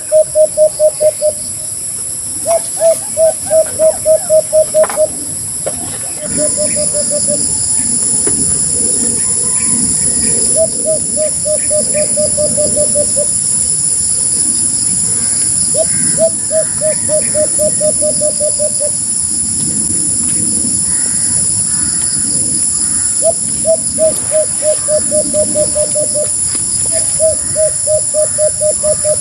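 White-eared brown-dove calling: repeated runs of quick, low coo notes, about seven runs each a couple of seconds long, with short gaps between them.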